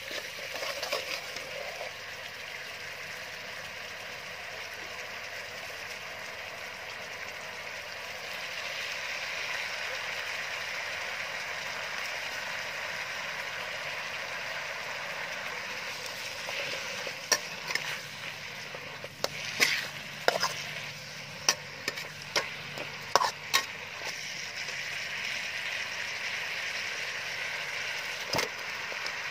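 Chili and garlic sizzling in oil in a steel wok while a metal spatula stirs them, a steady frying hiss. In the second half a run of sharp clinks and knocks of the spatula against the wok, with one more knock near the end.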